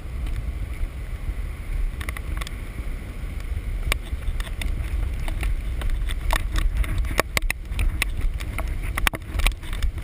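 Wind buffeting a GoPro in its waterproof case, heard as a muffled low rumble, with sharp clicks and knocks from the handheld camera being jostled on a fast hike down. The knocks come more often in the second half.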